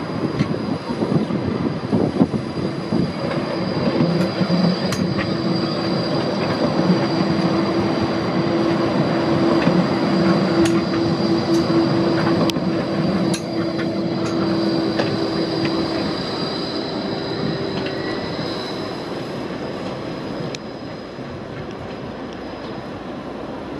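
Bombardier Flexity 2 light rail tram passing close by on the track. A steady low hum and a thin high whine come with scattered sharp clicks, growing louder toward the middle and fading as it draws away.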